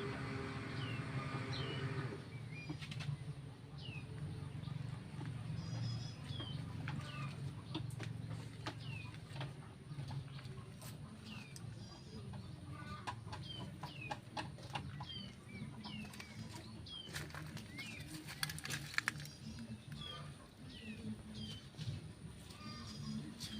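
Small birds chirping: short, falling peeps repeated every second or so over a low steady hum, with a brief cluster of sharp clicks late on.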